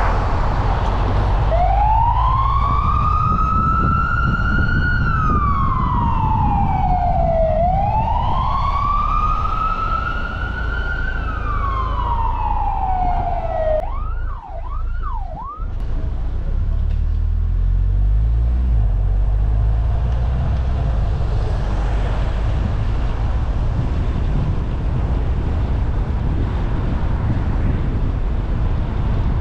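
Emergency vehicle siren: two slow wails, each rising for about three seconds and then falling, then three quick short sweeps, after which it stops about halfway through. Underneath is the steady low rumble of the car driving on the road.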